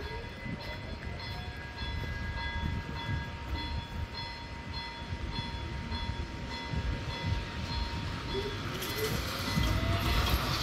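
Railway level crossing warning bells ringing in a steady repeating pattern while the crossing is activated. Near the end the boom barriers' motors whine, rising in pitch as the booms lower, and a rushing noise builds.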